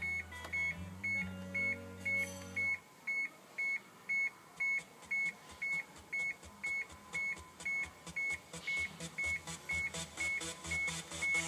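A car's electronic warning chime beeping steadily, about two short high beeps a second. A low hum and a few faint steady tones sound under it and stop about three seconds in.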